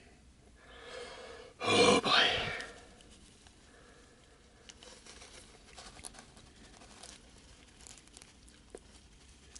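Small plastic model-kit parts handled and pressed together, with faint scattered clicks and rubbing as a piece is forced into a tight hole. One brief louder sound comes about two seconds in.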